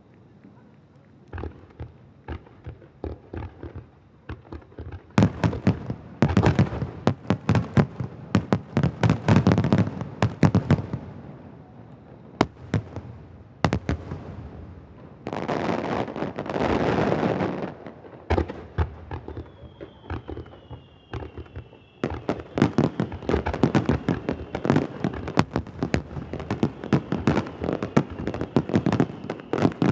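Starmine aerial fireworks display: rapid volleys of shells bursting in dense clusters of sharp bangs. About 15 seconds in, a few seconds of steady hiss, then a faint falling whistle.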